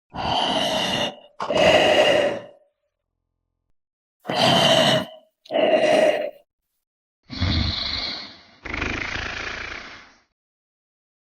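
Animated tractor sound effects: six short, cow-like lows and grunts, each about a second long with pauses between them. The last two are lower and rougher.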